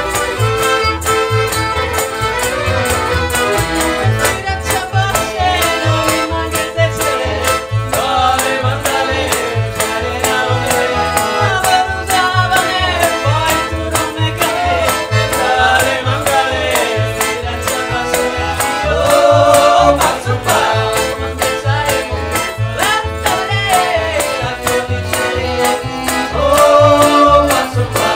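Live Balkan band music: violin and accordion carry the tune over a steady double-bass beat, with clarinet, hand percussion and voices. It swells louder twice, about two-thirds of the way through and again near the end.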